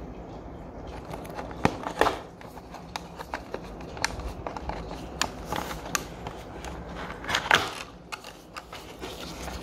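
Small cardboard box being handled and opened: irregular scrapes, taps and clicks of the card and its end flap being pried and pulled, loudest about two seconds in and again near the end.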